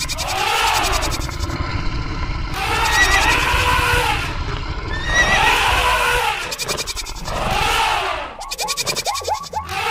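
Animal stampede sound effect: a low rumble of running hooves with an animal call repeating about every two and a half seconds. Near the end, a quick run of short calls follows several times a second.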